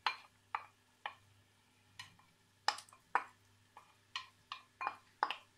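Wooden spoon tapping and scraping diced bell peppers out of a ceramic bowl and into a pot: a run of short, irregular clicks and knocks that come faster near the end.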